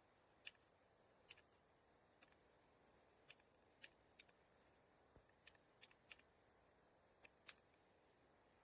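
About a dozen faint, sharp clicks, irregularly spaced, over near silence: single key presses on a mechanical keyboard.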